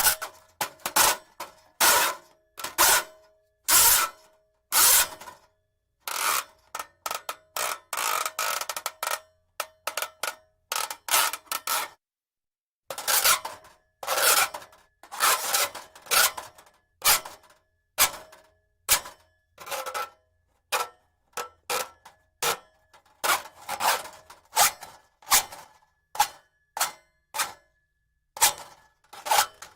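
Braided steel cable scraping and sliding in short, raspy strokes, roughly one or two a second, with a faint metallic ring in each stroke. The strokes stop for about a second near the middle of the run.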